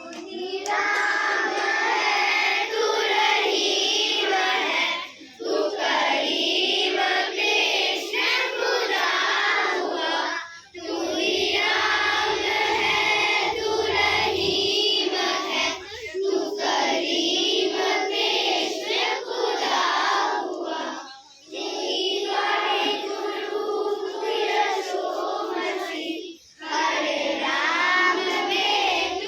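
A group of schoolchildren singing a song together in long phrases. The singing breaks briefly about every five seconds between lines.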